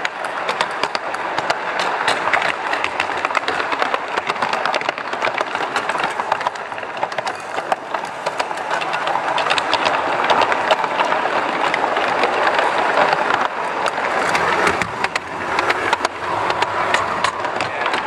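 Garden-scale model train rolling along its track, heard close up from one of its own cars: a steady rattling rolling noise with many small clicks.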